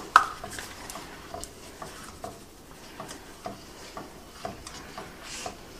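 Seasoned salt being shaken from a shaker over beaten eggs in a frying pan: one sharp click near the start, then light ticks and taps about twice a second.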